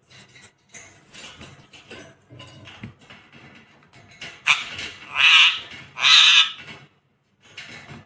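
Rose-ringed parakeet giving two loud, harsh screeches a little over halfway through, each well under a second long, after a stretch of light clicks and rustles.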